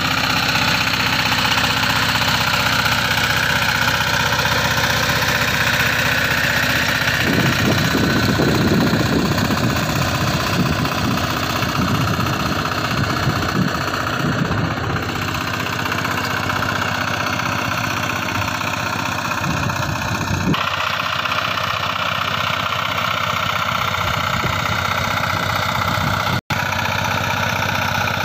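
Power tiller's single-cylinder diesel engine running steadily under load as it drives cage wheels and a rotavator through flooded paddy mud. A stretch of low, uneven rumbling runs through the middle, and the sound cuts out for an instant near the end.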